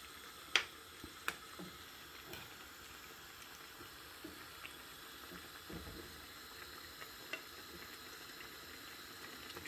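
Brown stew gravy simmering with a faint steady bubbling in a frying pan, while a metal spoon clicks sharply against the pan about half a second and a second in, with a few lighter taps later, as gravy is basted over the fish.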